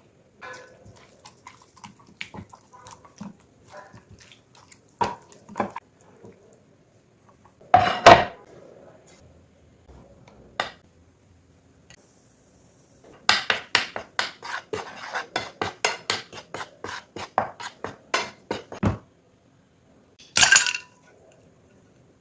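Kitchen utensils clinking against dishes and bowls: scattered light taps, a loud clatter about eight seconds in, then a quick run of clinks at about four a second for several seconds, and another loud clatter near the end.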